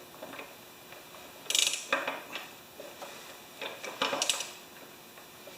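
Hand socket ratchet clicking in two short runs as a bolt on the mower is turned, with a few metallic clinks of the tool.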